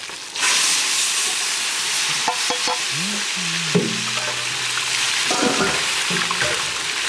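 Garlic and bay leaves hitting hot oil in a large square metal pan, setting off a loud sizzle that starts suddenly about half a second in and keeps going. A long metal spatula stirs and scrapes through the frying spices.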